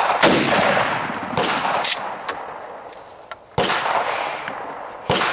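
Rifle shots with long echoing tails, several in a few seconds: a loud one just after the start, a weaker one about a second and a half in, and loud ones past three and a half seconds and near the end. Among them is a .30-06 round from a scoped Remington Model 760 pump-action rifle. Light metallic clinks come around two and three seconds in.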